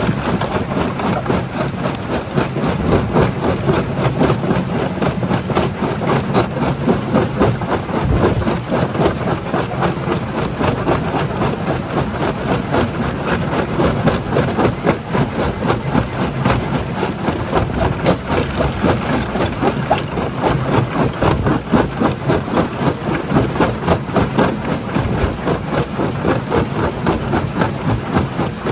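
Primary jaw crusher working rock: a steady machinery drone under constant, rapid, irregular knocking and rattling of stone being crushed.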